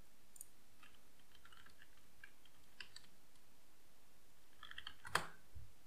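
Faint typing on a computer keyboard, a run of light key clicks, then a sharper click about five seconds in.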